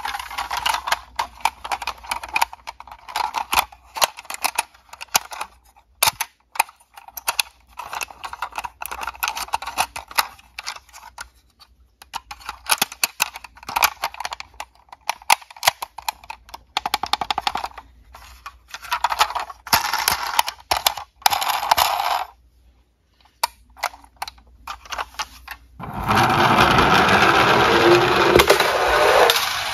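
Plastic and diecast toy cars clattering and knocking against each other and the cardboard box as they are handled, a quick irregular run of clicks with short pauses. Near the end a steady rolling rumble from a toy ambulance's wheels running down a smooth board slope.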